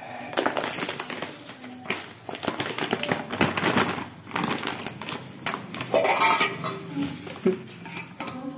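Bubble wrap and a glossy plastic protein-powder pouch crinkling and crackling as they are pulled apart and handled, in irregular bursts.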